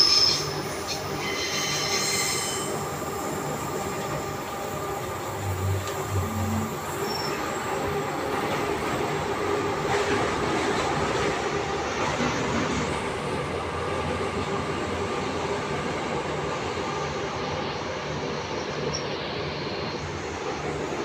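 Transperth A-series electric multiple unit heard from inside the passenger car while running: high wheel squeal for the first couple of seconds, then steady running noise of wheels on track with a faint hum.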